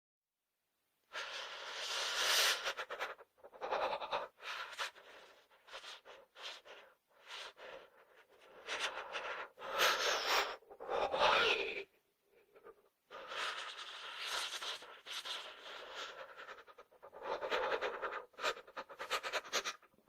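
A person shivering with cold: shaky, gasping breaths in irregular bursts with short pauses between them, starting about a second in.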